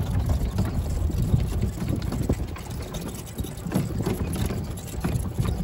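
Golf cart driving across a grassy field: a steady low rumble of the cart rolling over the ground, with wind buffeting the microphone.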